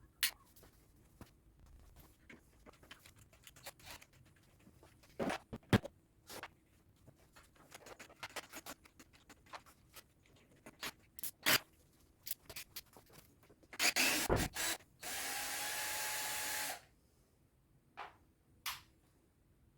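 Hand work on metal and plastic machine parts: scattered clicks, taps and knocks. Near the end come a few louder knocks and then a short burst, under two seconds, of a small power drill or driver running.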